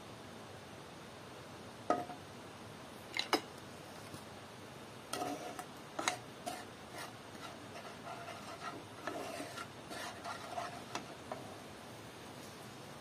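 A frying pan clanks twice as it is set down on a metal gas-burner grate. A wooden spatula then scrapes and knocks around inside the pan for about six seconds, each knock with a faint ring.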